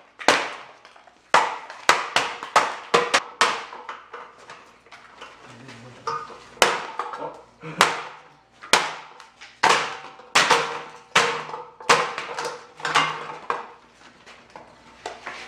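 Hammer blows knocking the plastic body panels and their mounts off a 110cc Chinese quad's frame: a long run of irregular sharp knocks, each ringing briefly.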